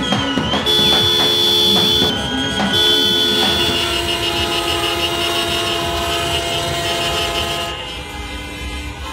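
Several car horns sounding together in long held blasts at different pitches, with shouting and cheering near the start. The horns drop out about eight seconds in.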